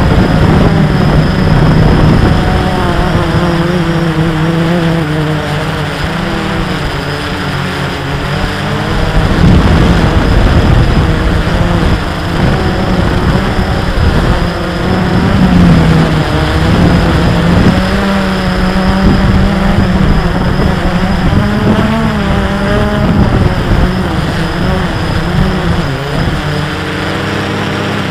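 Multirotor drone's electric motors and propellers running with a steady loud buzz, their pitch wavering up and down as the drone holds and shifts position.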